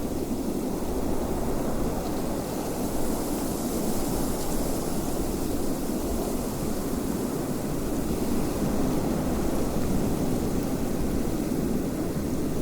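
Steady wind, a low rushing noise at an even level with no distinct gusts.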